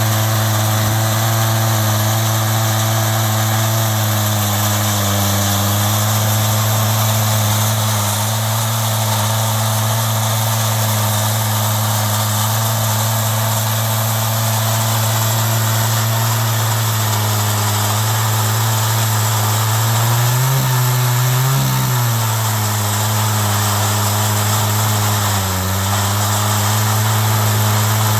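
Two-stroke chainsaw on an Alaskan chainsaw mill running steadily at high speed, cutting a walnut slab. Its pitch dips briefly a few times.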